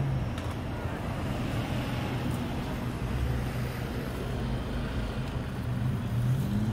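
Steady city street traffic noise: a continuous low rumble of passing vehicles with a faint engine hum.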